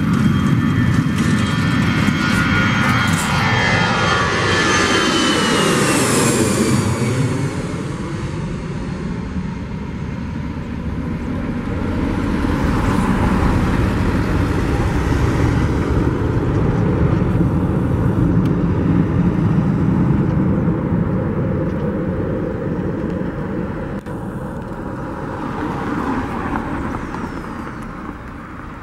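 Airbus A319 jet engines at takeoff thrust as the airliner lifts off and climbs away: loud jet noise with a high whine that drops in pitch about six seconds in as the plane passes, then a steady rumble that fades toward the end.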